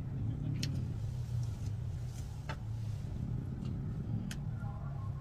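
A steady low rumble with a few sharp, light clicks of chopsticks and a ladle tapping a metal frying pan and bowl while noodles are served and eaten.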